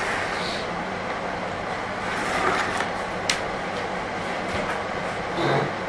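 Steady background noise with a faint low hum, broken by a single sharp click about three seconds in.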